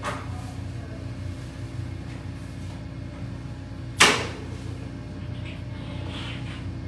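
Steady low electrical hum, with one loud, sharp knock about four seconds in that rings off quickly.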